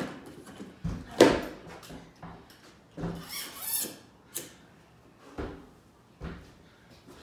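Weight plates being slid along a barbell's sleeves and collars being fitted, heard as a string of metallic knocks and scrapes. The loudest is a sharp clank about a second in, and there is a longer scrape around the middle.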